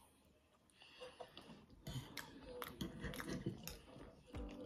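Faint scraping and clicking of a knife and fork cutting food on a plate, starting about a second in after a near-silent moment.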